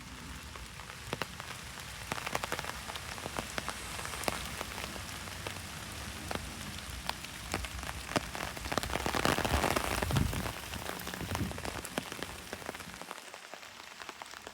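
Rain falling, with many separate drops heard as sharp ticks over a steady hiss; it swells around nine to ten seconds in and eases near the end.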